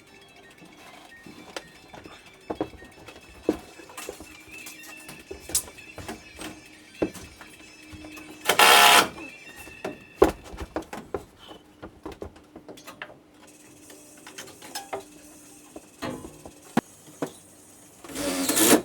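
Installation work noises, likely tools and materials being handled: scattered clicks and knocks, with a short loud burst of noise about nine seconds in and another near the end.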